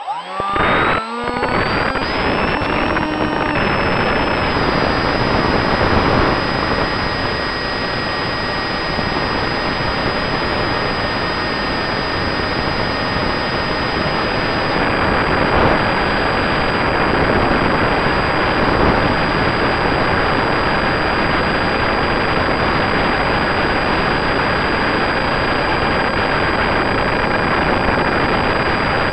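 Easy Star 2 RC plane's electric motor and propeller spooling up, the whine rising in pitch over the first three seconds, then running steadily in flight. The whine sits over a steady rush of air noise on the onboard camera.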